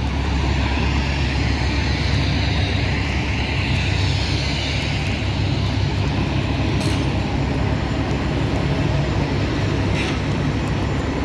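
Steady jet aircraft noise on an airport apron: a continuous low rumble under a broad roar.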